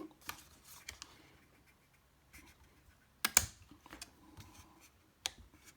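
A plastic back panel of a gear shift knob being pressed and worked into place by hand: light scraping with scattered clicks, the sharpest a little over three seconds in and again about five seconds in, not yet snapping fully home.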